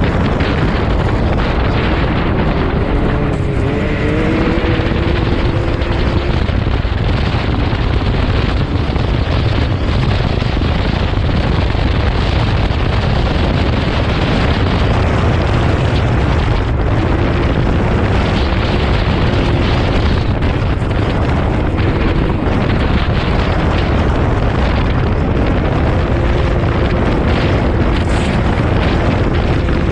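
Side-by-side UTV heard from its open cab at speed: a loud, steady rush of wind buffeting the microphone over the engine, whose note rises and falls a few times.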